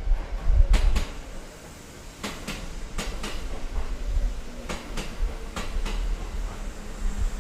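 A train passing on the adjacent track, heard from inside a stationary Kintetsu 2430-series car: a low rumble with its wheels clacking over rail joints, in pairs about a quarter-second apart, several times.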